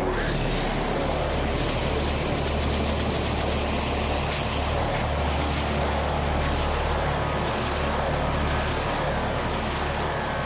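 A steady, dense rushing roar over a low droning hum, part of an electro-industrial soundtrack.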